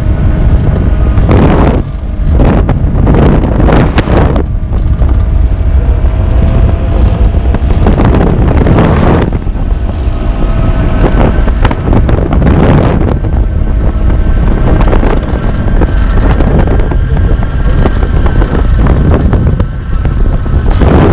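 Aeros 2 microlight aircraft's engine and propeller running steadily in flight, its pitch shifting slightly in the middle, heard from the cockpit under heavy wind noise on the microphone that surges in repeated gusts.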